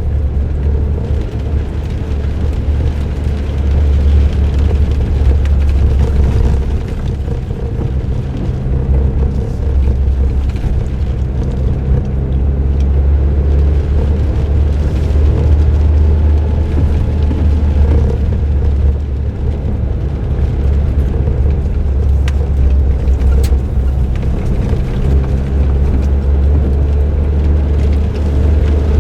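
Suzuki Jimny JB23W's 660 cc three-cylinder turbo engine running steadily through an aftermarket muffler while driving, with tyre and road noise. The loudness swells and eases a little as the throttle changes.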